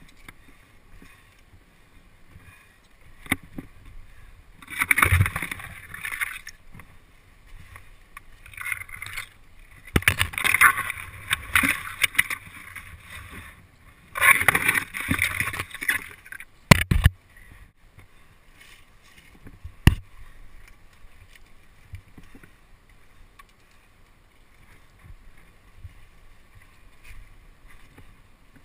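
Leaves and branches rustling and scraping in three bursts of a second or two as someone climbs through a tree, with a few sharp knocks from hands and branches striking the wearable camera.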